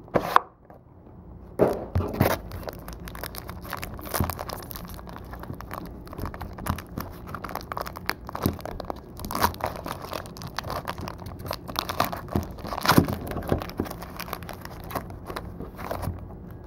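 Trading-card packaging being torn open and crinkled, wrapper and cardboard rustling, with a scatter of sharper clicks and crunches as the cards are handled.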